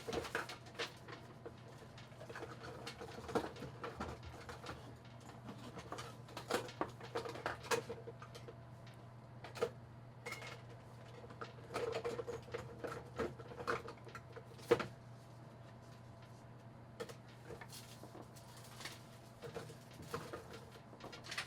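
Hands unboxing a pack of mechanical keyboard switches: irregular small clicks, taps and light plastic rattles and rustles, in little clusters, over a steady low hum that stops near the end.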